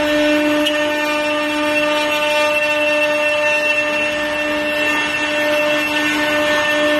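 Multi-spindle CNC wood router with rotary axes carving wooden blanks: a loud, steady whine from the spindles over the hiss of the cutters in the wood.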